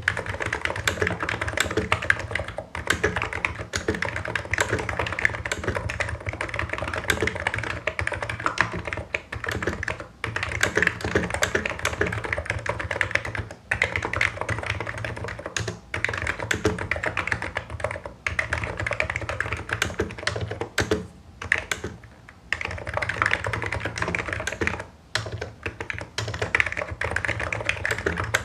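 Hansung Office Master full-size electro-capacitive (non-contact) keyboard with low Cherry-profile keycaps being typed on quickly and continuously, a dense run of key clacks broken by brief pauses every few seconds.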